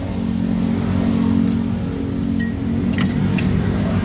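Steady low engine hum with a few light clicks of plastic cups and lids being handled in the middle.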